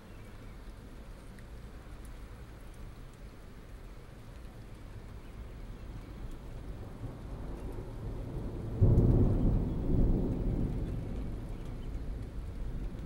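Thunder rumbling as rain falls: the low rumble builds over several seconds, breaks suddenly into a loud peak about nine seconds in, swells again a second later, then rolls away slowly.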